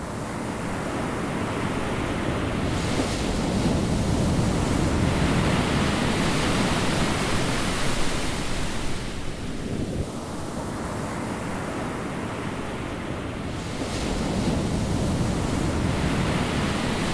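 Ocean surf washing over a rocky shore, fading in at the start. It swells twice, with a lull about ten seconds in.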